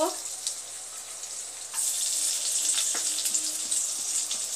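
Hot vegetable oil and butter sizzling in a pan. About two seconds in, chopped garlic goes into the fat and the sizzle jumps louder and holds steady, with light scrapes of a wooden spatula.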